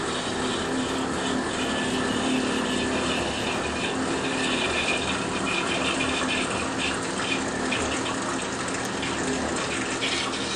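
Distek VIP 4400 dissolution vessel washer running a wash cycle: its nozzle sprays water around the inside of a glass dissolution vessel with a steady rushing sound over a low, even pump hum.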